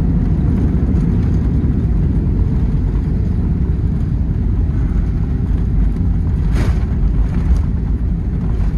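Cabin noise of an Airbus A320 rolling out on the runway after touchdown: a loud, steady low rumble, with one short clunk about six and a half seconds in.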